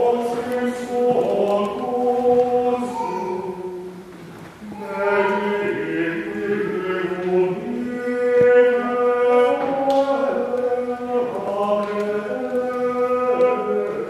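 Choir singing a slow chant in long held notes, with a short pause for breath about four seconds in.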